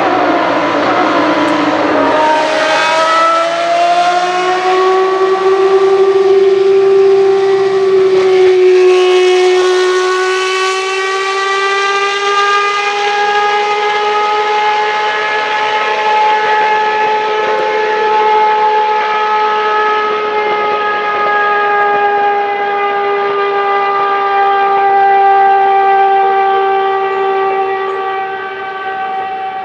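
Ferrari 640 Formula 1 car's 3.5-litre V12 running at high revs. Its shrill note dips and climbs again about two seconds in and again about eight seconds in, then holds high and nearly steady as the car drives away down the straight.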